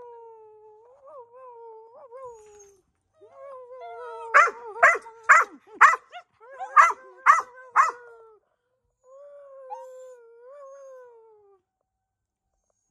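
A dog howling in three long, wavering calls, the middle one broken by a run of about eight sharp barks.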